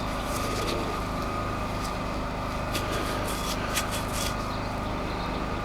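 Steady mechanical hum of the workshop, with a couple of faint light clicks about three and four seconds in.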